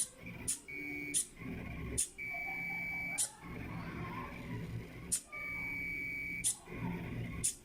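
DIY Arduino CNC pen plotter running, its stepper motors whining in steady high tones that last about a second each. The tones are broken by sharp clicks as the machine changes moves.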